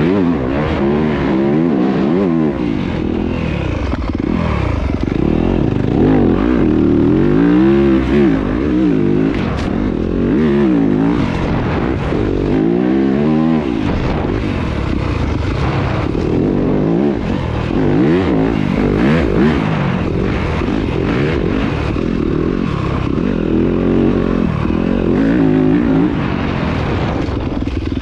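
Dirt bike engine being ridden, its pitch rising and falling every second or two as the throttle opens and closes, over a steady rush of noise with scattered clatter.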